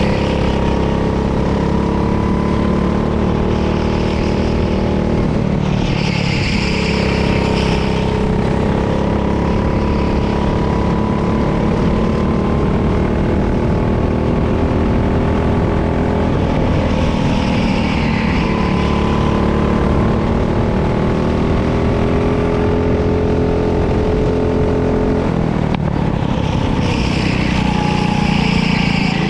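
Go-kart engine running hard, its pitch rising and falling as the throttle changes, with a few brief bursts of hiss about ten seconds apart.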